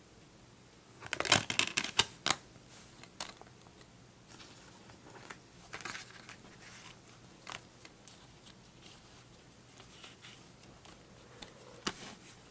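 Handling noise from a plastic Blu-ray case and its discs: a quick cluster of sharp clicks and rattles about a second in, then scattered single clicks and soft rustling of the paper insert.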